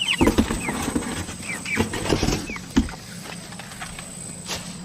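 Cornish Cross chicks peeping, a few short falling peeps, over rustling and soft knocks in the first three seconds as they scramble about.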